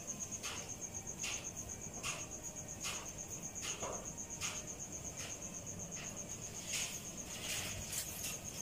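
Crickets chirping at night: a steady, rapidly pulsed high trill, with short hissy pulses recurring a little under once a second.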